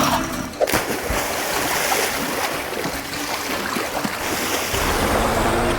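Cartoon sound effect of rushing, churning river water, with a sharp knock about a second in and a low rumble joining near the end.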